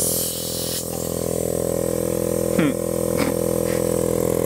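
DWM Copeland semi-hermetic R22 refrigeration compressor running steadily on a variable-frequency drive as a vacuum pump, drawing air out of a car tyre; a steady hum with many overtones. A brief hiss near the start, and two short pitched chirps about half a second apart a few seconds in.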